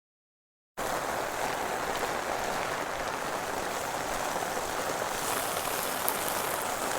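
Heavy typhoon rain falling, a steady even hiss that starts abruptly about a second in.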